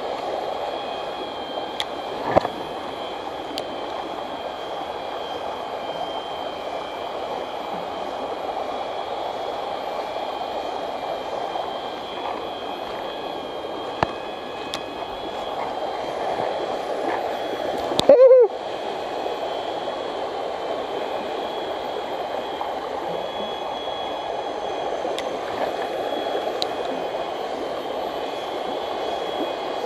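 Steady rush of a small forest stream running over a shallow riffle, with a faint steady high tone above it. A few faint clicks are heard, and one brief loud sound comes about 18 seconds in.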